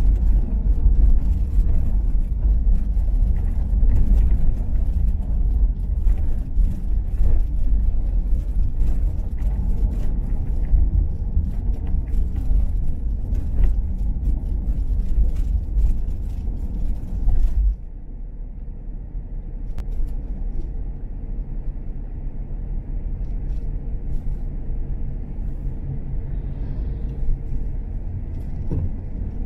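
A car driving on the road, with a low road and engine rumble and scattered small knocks. About two-thirds of the way through the rumble suddenly drops and stays quieter, then swells again right at the end.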